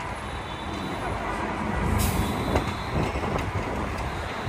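Street traffic and engine rumble heard from a sightseeing tour bus moving through city streets, with a short, loud hiss about two seconds in.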